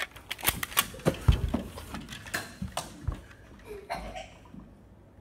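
Irregular plastic clicks and knocks with a few heavier thuds, from a Nerf blaster being gripped and handled close to the recording phone. The handling stops about four and a half seconds in.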